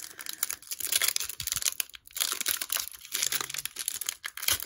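Foil wrapper of a Topps Merlin soccer trading-card pack crinkling and crackling in the hands as the pack is opened and the cards are pulled out. There is a brief lull about two seconds in.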